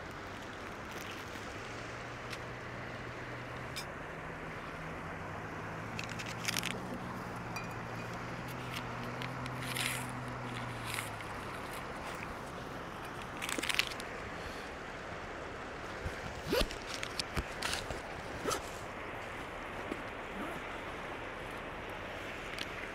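Steady rush of a shallow river running over rocks, with scattered clicks and rustles of clothing and gear being handled. A faint low hum comes in about three seconds in and fades out near the middle.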